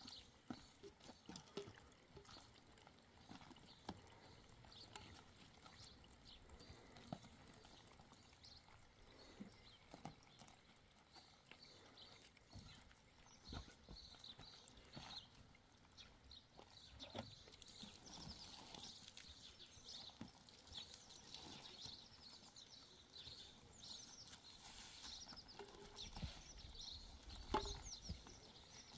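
Near silence: faint outdoor ambience with scattered light knocks, faint high chirps from about midway on, and one louder knock near the end.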